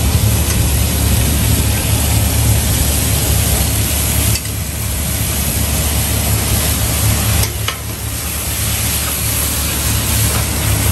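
Noodles stir-frying in a wok: sizzling and the scrape of a metal ladle turning them in the pan, over the steady low roar of the gas wok burner.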